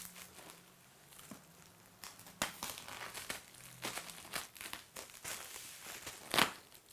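A knife cutting open a shipping package, with irregular scrapes, ticks and crinkles of the packaging. A louder rip comes near the end.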